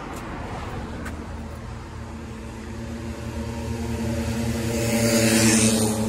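A car approaching along the street and passing close by, its engine hum and tyre noise growing louder to a peak about five seconds in.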